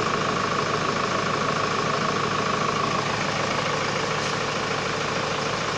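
Hyundai Starex CRDi common-rail diesel engine idling steadily, running smoothly now that a new fuel rail pressure sensor has cured its hard starting.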